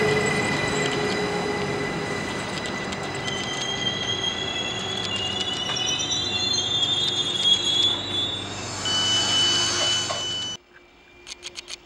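SBB RABe 522 (Stadler FLIRT) electric multiple unit rolling along a platform close by. Steady high whine and wheel squeal with shifting high tones over the running noise, slowly fading. About ten and a half seconds in, it cuts off abruptly to a much quieter background with a few faint clicks.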